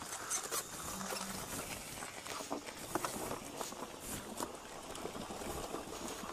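Daymak e-bike rolling slowly over gravel and through tall grass: a steady crunching and crackling from the tyres and brushing weeds, with many small clicks and rattles.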